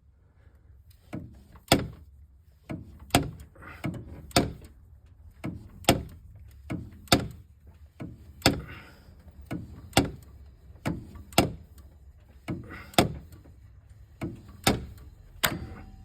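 A series of sharp metallic clicks, roughly one a second and uneven in loudness, as the Ford 3.5 EcoBoost engine is turned over by hand with its valve cover off. Among them is the click of the faulty intake camshaft phaser slipping: the sprocket turns while the camshaft stays still, a sign of a failed phaser.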